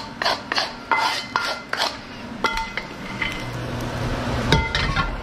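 A utensil scraping quickly across the bottom of a pan to get the crispy stuck-on bits out. Two ringing metal clinks against the pan follow, about halfway and near the end.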